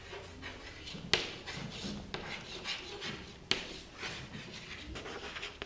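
Chalk writing on a blackboard: a run of short scratchy strokes, with two sharp taps as the chalk strikes the board, the louder one about a second in.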